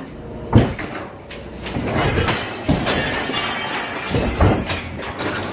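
A run of sharp crashes and clattering knocks, the sharpest about half a second in.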